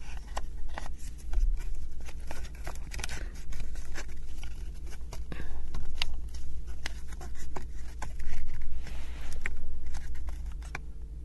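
Thin wooden 3D-puzzle pieces for a model stroller clicking and knocking together as they are handled and pressed into their slots, close to the microphone. A softer rubbing of wood on wood comes around nine seconds in.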